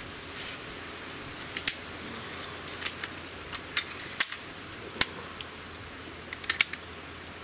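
Sharp metallic clicks and clacks from working the under-lever of a Hatsan Torpedo 150 Sniper gas-piston air rifle and handling its loading breech, about a dozen in all. The loudest comes a little past four seconds in, and a quick cluster follows near the end.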